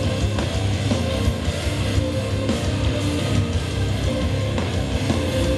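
Rock band playing live at full volume: electric guitar over bass and drums, dense and steady.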